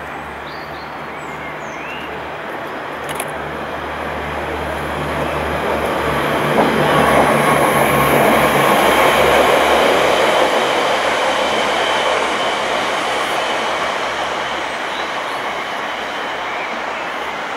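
Steam locomotive 60163 Tornado, a Peppercorn A1 Pacific, working hard with a heavy, dense exhaust over a steady low hum. The exhaust swells to its loudest midway and then eases off.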